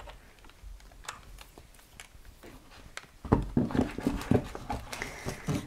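A few faint clicks, then from about three seconds in a couple of seconds of close knocking and rustling as a stack of paper and cardboard gift packages is gathered up and handled on a cutting mat.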